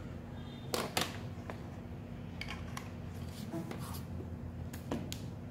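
Several light clicks and taps: two sharper ones about a second in, then a scattering of fainter ones, over a steady low hum.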